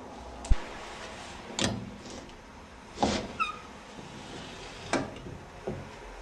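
A series of irregular knocks and clunks, about six in all, over a steady background noise, with a brief squeak just after the loudest clunk.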